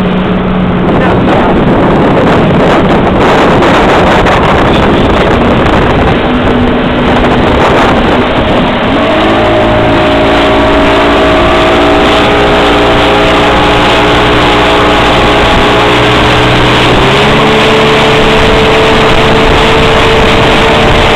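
Motorboat engine running at speed, with water rushing past the hull and wind buffeting the microphone. The engine note rises about nine seconds in and again later as the boat speeds up.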